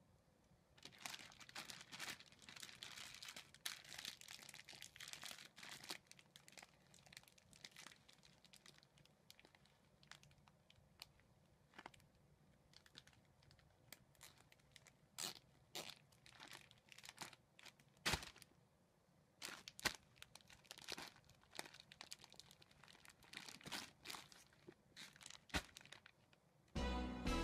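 Thin plastic food bags crinkling and rustling as hands gather a bag's neck and fasten it with a reusable cable tie: a long stretch of steady rustling, then scattered sharp crackles and clicks. Music starts just before the end.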